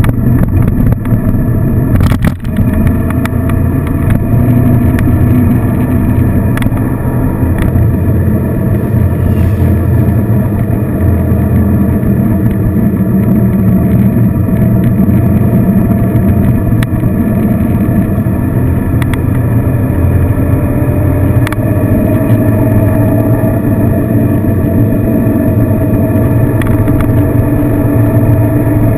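Touring motorcycle engine running steadily at road speed, heard from the saddle with wind rushing past the fairing. A single sharp knock comes about two seconds in, and the engine note climbs slowly over the last third as the bike speeds up.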